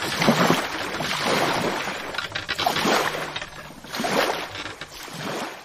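Water rushing and splashing along the hull of a sailboat under way, with wind, coming in uneven surges and fading out near the end.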